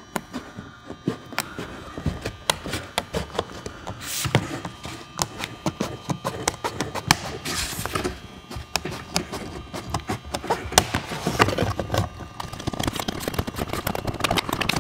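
Tin snips cutting through a vinyl siding panel: a long run of short, sharp clicks as the blades bite, with a louder scrape of the vinyl now and then.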